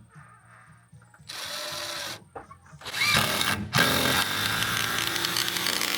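Power drill running in two bursts: a short one of about a second, then a longer run that winds up and holds steady for about three seconds.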